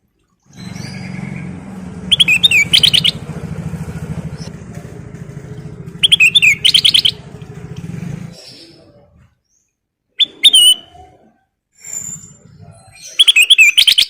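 A kutilang emas bulbul sings short, bright phrases of rapid repeated notes, each about a second long, four times at intervals of three to four seconds. For the first eight seconds a low steady engine-like rumble lies underneath, then it fades away.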